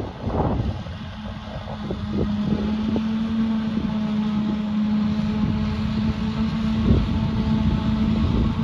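Diesel engine of farm machinery running steadily, holding one even tone, with wind buffeting the microphone.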